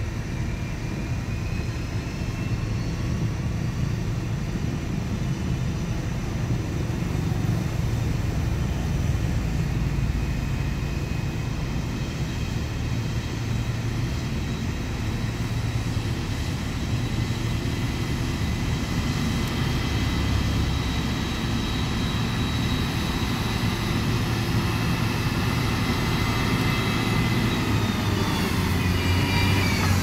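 Heavy diesel road-construction machinery running steadily with a low engine rumble and a high whine over it. The whine rises in pitch in the first couple of seconds, holds, and falls away near the end.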